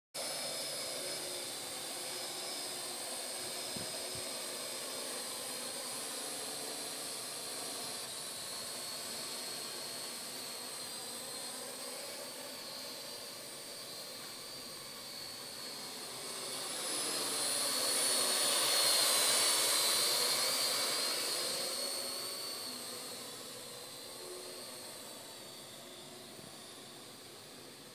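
Jet aircraft flying over in the night sky: a steady rushing with a high whine that swells to its loudest about two-thirds of the way through, then fades away.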